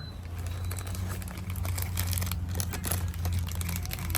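Packaging crinkling and rustling in irregular crackles as food bought after a long queue is unwrapped, over a steady low hum.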